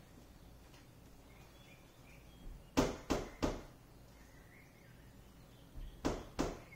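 Sharp knocks on a butcher block countertop as it is tapped into position to sit square to the wall: three quick knocks a little under three seconds in, then another group of knocks about six seconds in.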